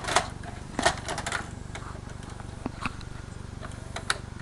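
A few scattered sharp clicks and light knocks over a steady low hum, typical of handling a VCR and its remote while a tape is loaded.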